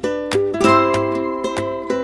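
Background music: upbeat plucked-string tune in the style of a ukulele, with several plucked notes a second over a bass line.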